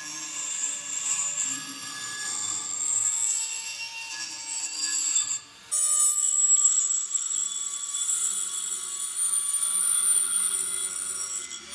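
A small rotary tool with a pink grinding-stone point runs at high speed against the steel handle of a pair of scissors, a steady high whine with scraping as it grinds down the rust pitting and throws sparks. The sound drops out for a moment about five and a half seconds in, then the grinding carries on.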